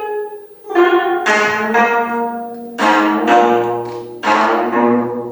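25-string gayageum playing forceful plucked chords, about five strong attacks that each ring on and fade away before the next.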